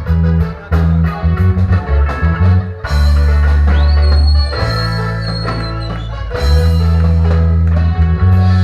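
Instrumental passage of a reggae song: a heavy bass line and guitar, with an even, ticking beat over the first few seconds and a long held high note in the middle.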